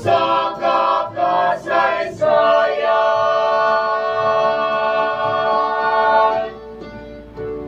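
Mixed vocal quartet, two women and two men, singing a cappella in harmony. A few short sung syllables lead into a long held closing chord that stops about six and a half seconds in.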